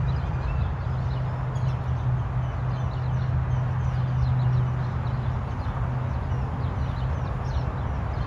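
Birds chirping with many short high calls, several a second, over a steady low rumble.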